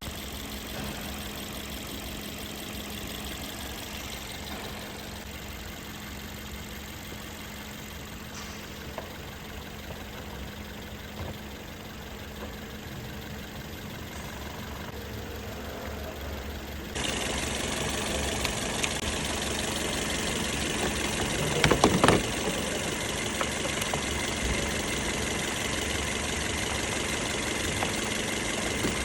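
Freshly overhauled Toyota 1ZZ-FE 1.8-litre four-cylinder engine idling steadily. It gets louder and brighter about 17 seconds in, and a short cluster of loud knocks comes about 22 seconds in.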